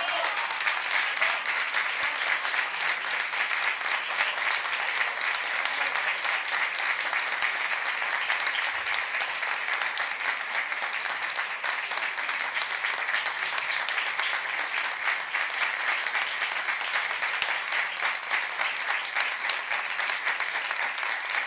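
Audience applauding steadily: a dense, even patter of many hands clapping, starting just as the song ends.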